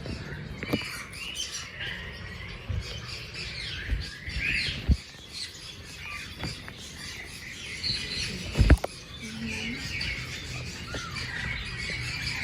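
Many small caged birds chirping and squawking at once, a busy overlapping chatter. Two sharp knocks cut through, about five seconds in and again near the end, the second the loudest.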